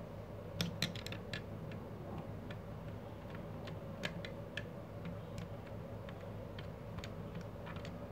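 Scattered light clicks and ticks of a screwdriver on the terminal screws as a thermal overload relay is fitted onto a three-phase contactor, with a quick cluster of clicks about a second in. A faint steady hum runs underneath.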